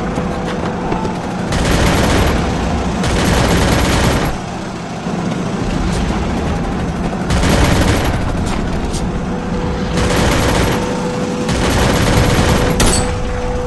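Battle gunfire: five volleys of rapid shots, each about a second long, over a steady low rumble, then a single sharp rifle crack near the end as the sniper fires.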